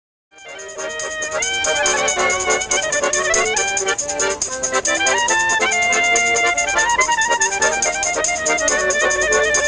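Instrumental music with a moving melody over a quick, steady pulse, starting about a third of a second in after a brief silence.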